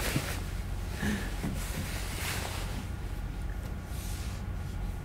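Quiet room tone: a steady low hum with a few faint, soft, brief noises.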